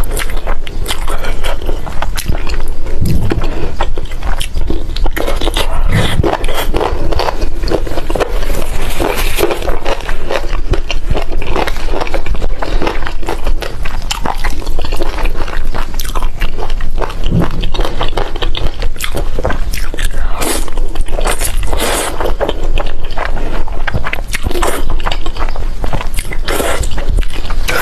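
Close-miked ASMR eating: a person slurping and chewing spicy instant noodles, a dense run of quick wet smacks and clicks that keeps going throughout.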